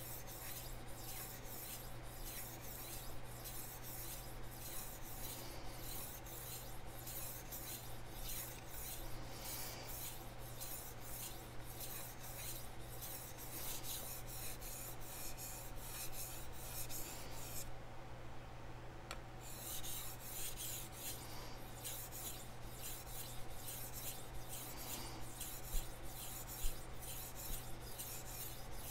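Chef knife blade scraping back and forth on a Naniwa Chosera whetstone in quick, even strokes, with a break of about a second and a half about two-thirds of the way through. The second side of the edge is being ground to raise a burr.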